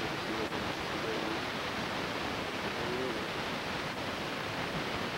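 Steady, even background hiss, with faint traces of a distant voice early on and about three seconds in.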